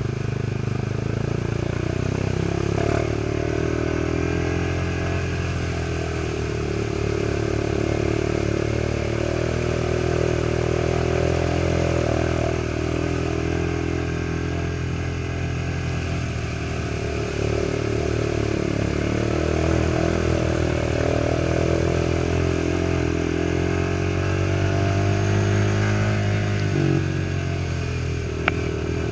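Off-road trail motorcycle engine running steadily, its revs drifting up and down. There is a single sharp click near the end.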